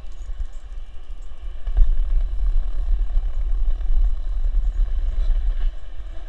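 Skateboard wheels rolling over asphalt: a steady low rumble that gets louder after a bump about two seconds in.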